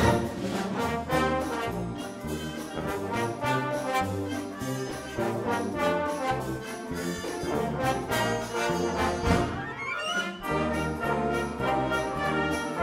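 Youth wind orchestra playing live: brass, saxophones and flutes over a moving bass line, with a brief lull about ten seconds in before held brass chords come in.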